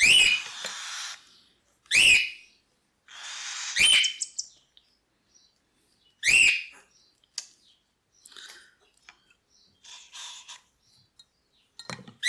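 Cockatiel chicks calling during hand-feeding, loud begging calls about every two seconds in the first half with raspy hissing between them, then softer, scattered chirps and rustles.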